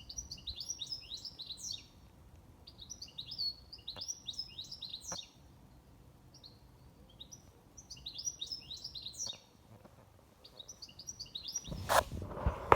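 A songbird singing repeated phrases of rapid, high chirps, each phrase about two seconds long and coming every few seconds. Near the end there is a loud rustling noise, like the microphone being handled.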